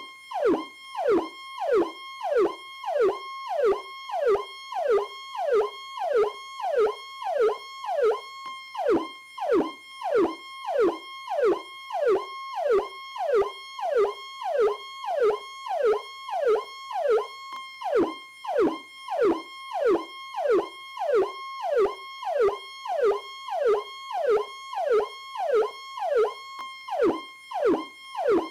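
Police car electronic siren on its 'Powercall' tone: a sharp downward sweep repeating about one and a half times a second over a steady high tone, without a break.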